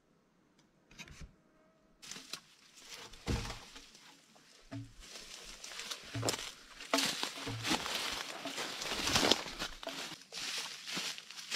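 Footsteps and leaves and branches rustling as a person pushes through dense undergrowth and lifts and handles a thin dead log, with several dull thumps; the rustling starts about two seconds in.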